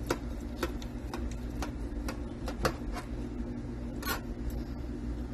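Knife slicing smoked brisket held with a carving fork in a metal pan: irregular clicks and taps of the blade and fork against the meat and pan, over a steady low hum.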